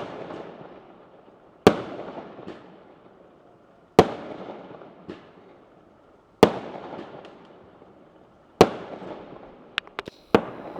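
Fireworks bursting: five sharp bangs about two seconds apart, each followed by a long rolling echo that fades away, with a few smaller cracks near the end.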